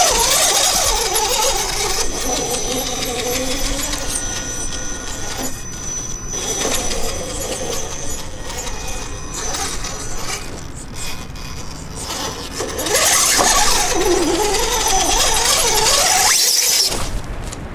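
Hobby-grade RC rock crawler's electric motor and geared drivetrain whining as it crawls over rocks, the pitch wavering up and down with the throttle. It is louder for a few seconds near the end.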